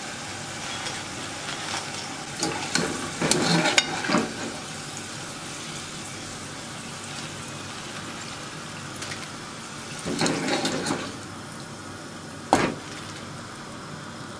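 Hot oil sizzling steadily in a deep pan of frying potato chips, while fried chips are tipped off a wire skimmer onto a plate: bursts of clinking and scraping a few seconds in and again around ten seconds, and one sharp knock near the end.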